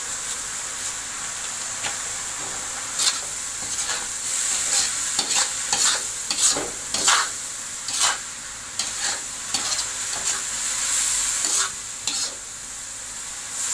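Straw mushrooms stir-frying in oil in a wok, sizzling steadily, with a metal spatula scraping and tossing them against the pan in irregular strokes through the middle.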